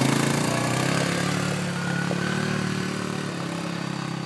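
ATV engine running at steady low revs as the quad climbs away up a rocky trail, growing gradually fainter.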